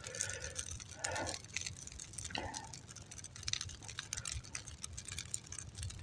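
Campfire crackling with damp birch bark and wood: irregular small snaps and pops, none of them loud.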